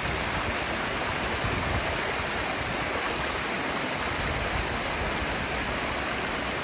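Small mountain stream cascading over rocks, a steady, even rush of water.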